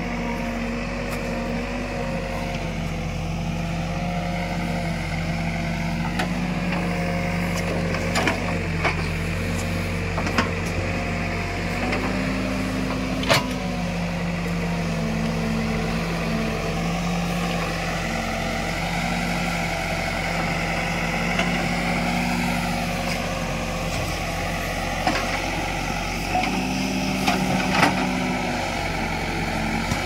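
JCB 3DX backhoe loader's diesel engine running steadily as it digs, its pitch stepping up and down a few times. A handful of short sharp knocks and clanks are scattered through, the loudest near the end.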